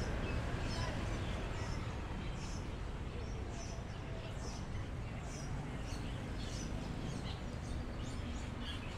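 Birds chirping in short, high, repeated calls, about one or two a second, over a steady low background rumble of outdoor noise.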